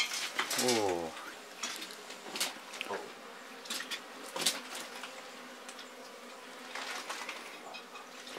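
Swarm of honeybees buzzing steadily around an opened wall hive, with scattered sharp clicks and knocks over the hum. A brief voice sounds just under a second in.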